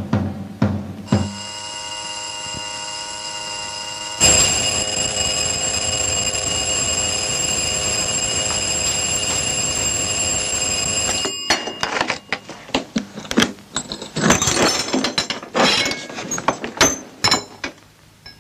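Electric doorbell ringing in one long steady peal, louder from about four seconds in, then cutting off suddenly. A run of clicks and knocks follows.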